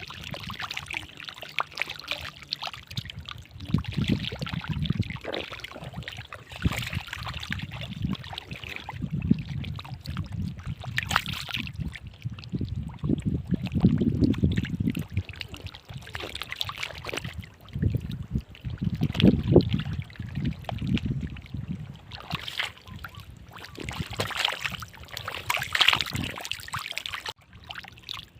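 Shallow water splashing and sloshing in irregular bursts, from people wading and grabbing fish by hand.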